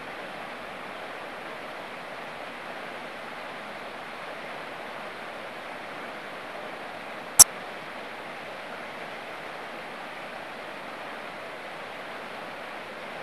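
Steady rush of flowing water, with a single sharp click about halfway through.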